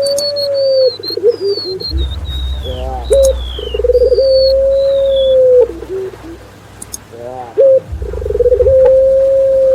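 Doves cooing in a repeating phrase, three times: a quick stutter of short notes, one long held coo, then a few short falling notes. Over the first half come thin, high, falling whistled notes, the song of a golden-bellied gerygone.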